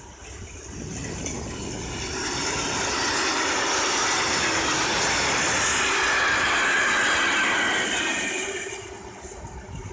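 Empty freight flat wagons rolling past on the rails, wheels rumbling and clattering over the track. The sound swells over the first few seconds, stays loud, then falls away about nine seconds in as the train moves off.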